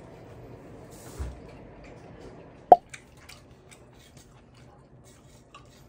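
Quiet dining-table sounds: one sharp clink of a utensil against a dish about three seconds in, followed by a few faint ticks.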